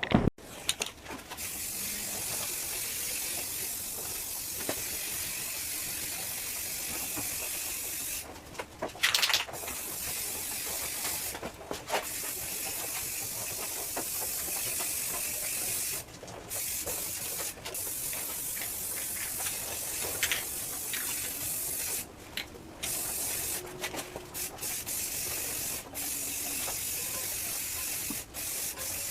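Aerosol can of spray primer hissing in long sprays, broken by short pauses between passes as the frame is primed.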